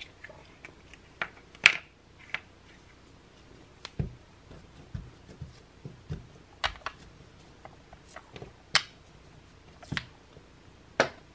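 Hands kneading Play-Doh and pressing a plastic letter cutter into it on a tabletop: scattered sharp clicks and taps, with a couple of dull thumps.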